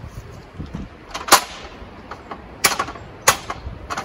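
Aluminum extension ladder clanking as it is taken down and moved: sharp metal knocks, the loudest about a second in and two more near the three-second mark.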